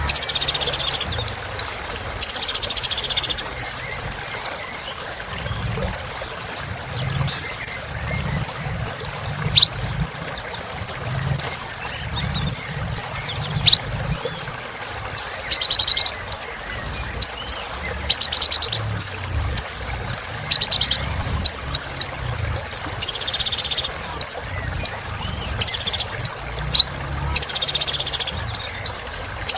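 Kolibri ninja sunbird singing without pause: rapid high-pitched chirps and quick sweeping notes, broken every second or two by short buzzy trills. A faint low hum sits underneath.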